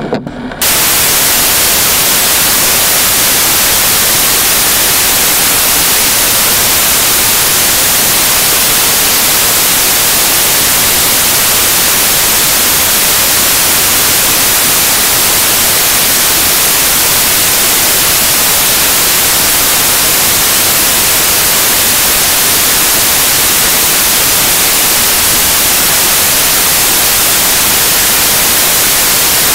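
Loud, steady static hiss that does not change at all, strongest in the high register, with no engine or traffic sounds standing out.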